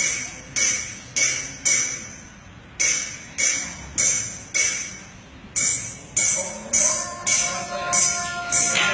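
Recorded music of tambourine-like jingling percussion hits, evenly spaced at just under two a second, each ringing briefly, with one longer gap about two seconds in. Near the end a held melody comes in under the hits.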